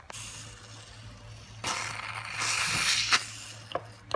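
Aerosol whipped-cream can spraying cream onto a milkshake: a hiss of about a second and a half starting partway in, followed by a few light clicks.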